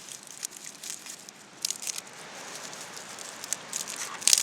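Dry dead ivy and tinder crackling and crunching in bursts as it is handled and packed into a homemade tin-can twig stove, the loudest cluster near the end.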